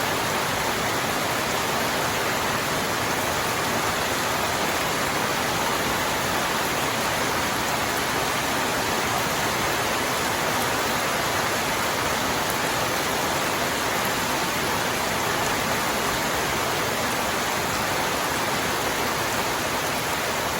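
Steady rain falling, an even hiss that keeps a constant level throughout.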